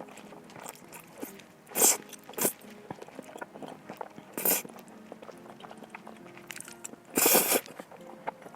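Eating sounds: a few short, loud noisy bursts of chewing and mouth noise about two, two and a half and four and a half seconds in, with the longest and loudest about seven seconds in, over faint background music.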